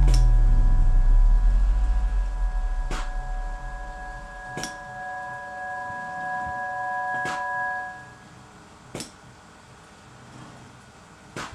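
Background music ending on a held chord that fades out over about eight seconds. After it comes a faint machine hum with a few sharp clicks, a second or more apart, as the robot arm's gripper handles a wooden chess piece.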